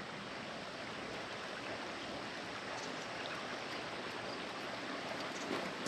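Steady outdoor background noise: an even hiss with nothing standing out of it.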